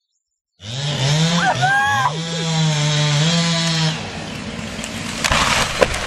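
Chainsaw running at high revs, its pitch dipping and rising again about a second in, then holding steady until about four seconds in, when it eases off. A person's voice cries out over it about a second and a half in.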